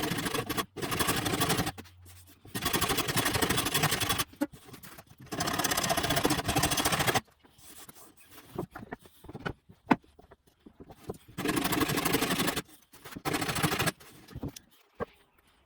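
Long rasping strokes of a hand tool cutting oak, each lasting one to two seconds, three in the first half and two more later on. Between them come a few light knocks and taps.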